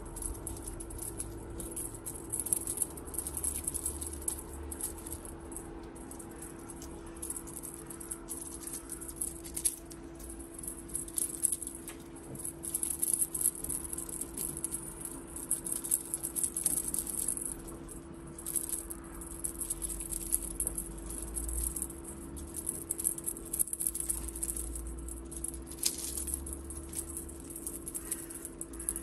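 A small cat-toy rattle shaken in quick, irregular bursts throughout, over a steady low hum.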